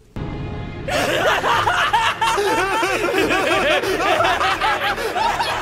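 Maniacal laughter from two voices cackling over each other, loud and rapid, starting about a second in over a low rumble.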